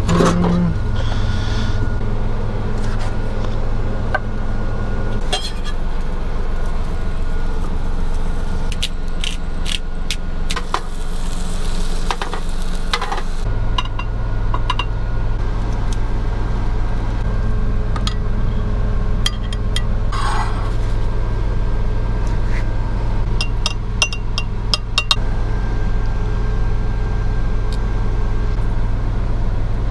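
Steady low hum of an idling truck engine heard inside the cab, with scattered light clinks and taps of a glass sauce jar, spoon and plate.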